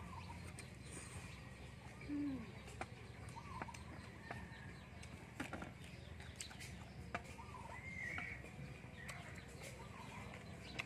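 Faint scattered short animal calls, the loudest a brief low falling call about two seconds in, with a few sharp clicks of chopsticks against steel trays.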